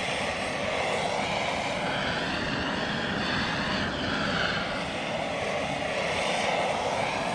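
Propane torch flame roaring steadily while heating the end of a 4-inch hose to soften it so a new coupler will slide on.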